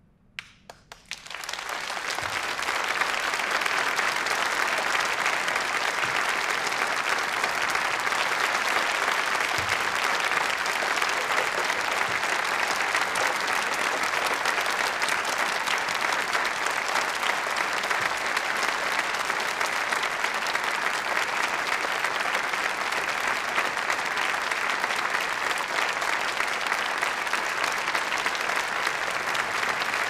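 Audience applauding. A few separate claps come first, then within a couple of seconds the clapping swells into dense, steady applause.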